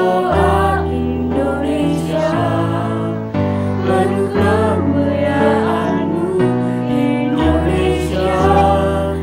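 A small mixed choir of young male and female voices singing a slow song in harmony over instrumental accompaniment, whose held bass notes change every second or two.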